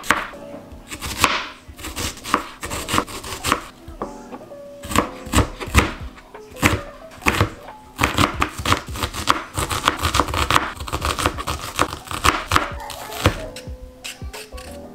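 Chef's knife slicing and then chopping a red onion on a plastic cutting board: separate knife strikes at first, then a quick run of chopping from about halfway through, with background music underneath.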